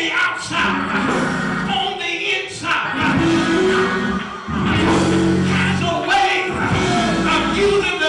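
A man singing through a microphone over live church backing music, with strong sustained low notes through the middle.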